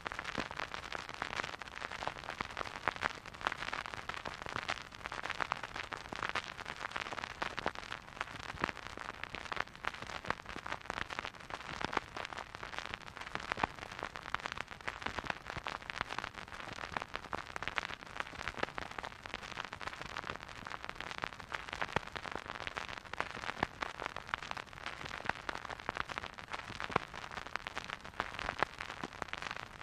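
Vinyl record surface noise from a record player: a steady, dense crackle of small clicks and pops as the stylus rides the groove, with no music.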